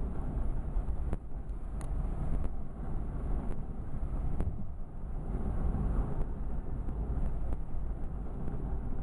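Storm wind buffeting the microphone: a steady low rumble with a few faint clicks.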